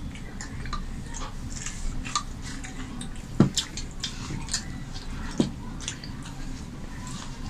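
Metal spoon clinking and scraping in a ceramic soup bowl, with soft chewing of soup, as a run of small clicks and taps; two louder knocks come about three and a half and five and a half seconds in.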